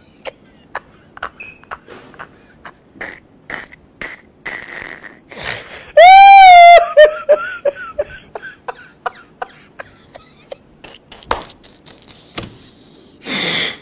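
A man laughing uncontrollably: a run of short breathy gasps and wheezes, one loud high-pitched shriek of laughter about six seconds in, and a loud rush of breath near the end.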